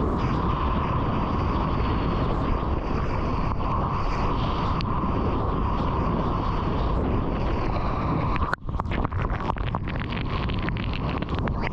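Rushing water and wind noise picked up by a waterproofed action camera riding a surfboard through breaking whitewater. About eight and a half seconds in the rush cuts out sharply for a moment, then turns to crackling splashes as breaking foam washes over the camera.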